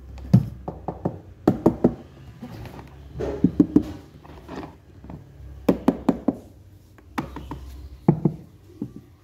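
Knocks and taps on the hollow plastic housing of a small Miyako water dispenser as it is handled, coming in quick clusters of two to four knocks every second or two.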